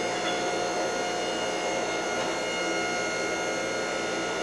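Hydraulic forging press's pump motor running at idle: a steady hum with a constant whine over it.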